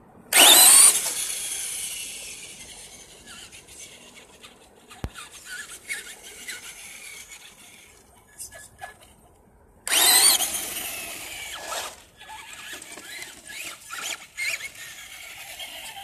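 Traxxas Slash RC truck launching at full throttle with a sudden loud high electric whine whose pitch falls as it speeds away and fades. About ten seconds in it comes tearing past again just as loud and fades the same way.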